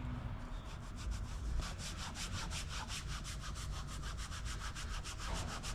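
An applicator rubbed quickly back and forth over the truck's trim, working in a dye product, in rapid, even scrubbing strokes that become distinct about a second and a half in.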